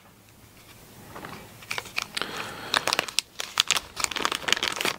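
Hands handling small printer-kit hardware: light, irregular clicks of screws and washers with crinkling of plastic parts bags. It starts about a second and a half in, after a quiet start.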